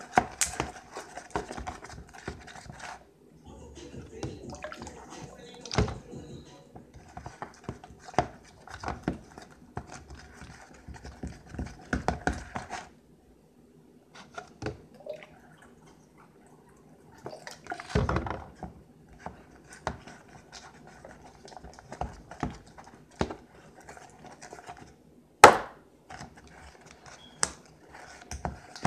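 Plastic spoon stirring homemade slime in a plastic bowl: irregular clicks, knocks and wet scraping of the spoon against the bowl, with one sharper knock near the end.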